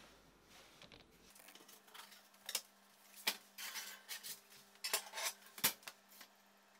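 Metal clinks and knocks at a kitchen oven as a scored sourdough loaf is put in to bake: four or five sharp knocks in the second half, with rustling between them, over a low steady hum.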